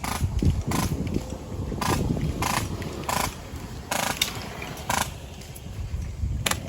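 Airsoft guns firing short bursts: about eight quick, sharp rattles spaced irregularly a half second to a second apart, over low rumbling movement and handling noise.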